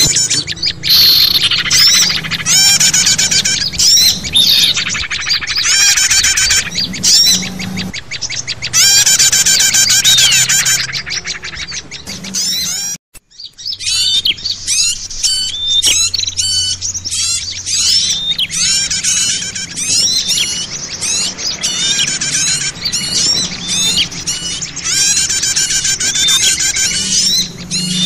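Bird-lure recording of many small songbirds calling at once: a noisy, dense chorus of chirps and rapid trills, with a brief break about thirteen seconds in.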